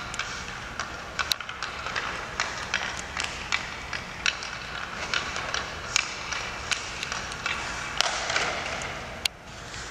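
Hockey sticks and pucks clacking on an ice rink, irregular sharp knocks one or two a second, over the scraping hiss of skate blades on the ice.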